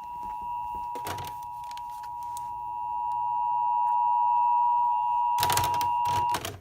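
Weather radio sounding the Emergency Alert System two-tone attention signal, a steady dual tone near 850 and 960 Hz, ahead of a Civil Emergency Message. The tone grows louder and cuts off near the end, with short bursts of noise about a second in and again near the end.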